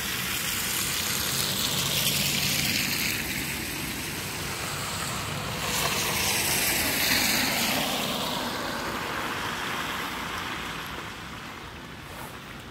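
Cars driving past on a wet, slushy road, with tyre noise through the slush; two pass-bys swell and fade, about two seconds in and again about six seconds in, then the noise dies down near the end.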